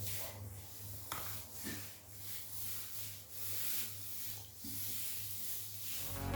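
Soft, repeated scraping strokes, about two a second, of a trowel spreading wet floor-levelling compound, over a faint low hum.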